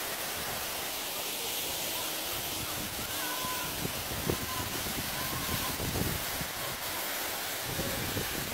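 Steady hiss and rush of a tall waterfall, water falling down a high rock face, with a few faint high chirps in the middle.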